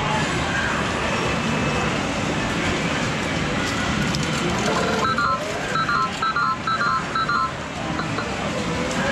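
Steady din of a medal-game arcade, with a swooping electronic tone recurring about every five seconds. About five seconds in, a quick run of short electronic beeps comes from the Sigma Red Dog Poker video poker cabinet and lasts a couple of seconds.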